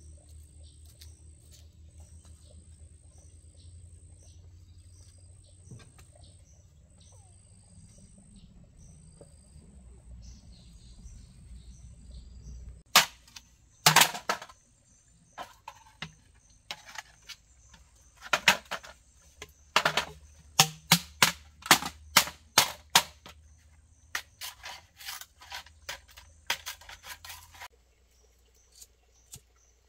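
A series of sharp wooden cracks and knocks, bamboo and sticks being broken up for kindling. They come singly and in quick clusters, starting almost halfway in and stopping shortly before the end, after a stretch with only a faint low background noise.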